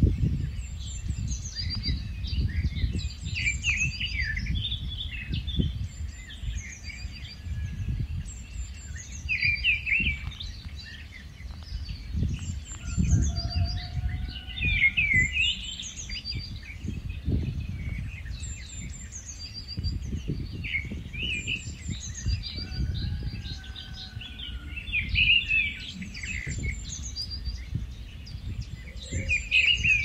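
Songbirds singing in a continuous run of short chirping, warbling phrases. Some of the phrases are high and fall in pitch, and they repeat every second or so.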